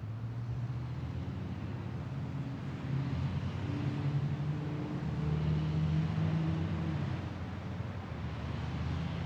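Low, steady hum of road traffic, with a vehicle engine growing louder about three seconds in and fading again near the end.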